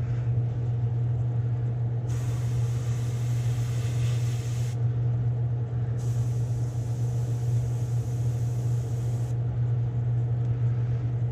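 Steady low hum of a spray booth's exhaust fan, with two bursts of Iwata airbrush hiss about two and six seconds in, each lasting about three seconds, as a light coat of black paint is sprayed onto a lure's gills.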